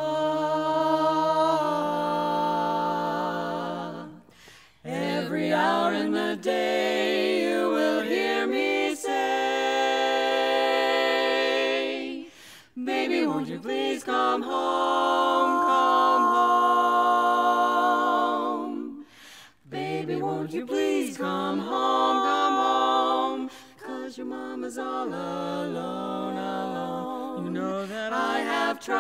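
Women's barbershop quartet singing a cappella in four-part close harmony. The singing begins right at the start, with held chords broken by short pauses between phrases.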